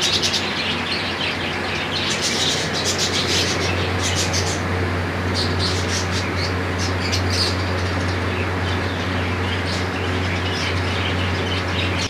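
A flock of budgerigars chirping and squawking over the steady whir and low hum of a water air cooler that has just been switched on. Everything cuts off suddenly at the end.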